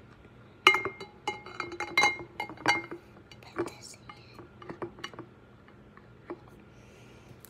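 Tall glass vase knocked from inside, clinking and ringing: a quick run of sharp knocks starting about a second in, then softer, sparser taps.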